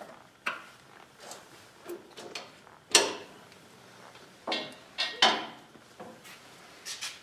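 Scattered metallic clanks and clinks of steel hydraulic hose fittings and hand tools being worked at a compact tractor's backhoe hydraulic connections. The loudest clank is about three seconds in, with several more close together around five seconds.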